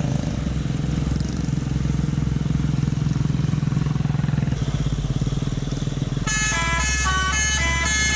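Fuso dump truck's diesel engine running with a rapid, steady beat, its note changing a little before five seconds in. About six seconds in, a multi-tone 'telolet' horn starts playing a quick stepping melody over the engine.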